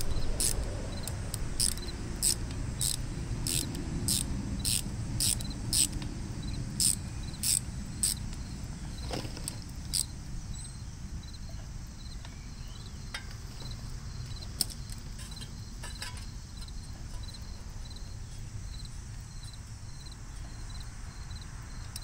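Insects chirping in a steady rhythm, about two or three loud chirps a second, the loud chirps stopping about ten seconds in while a fainter regular chirping carries on. A few small sharp clicks come later.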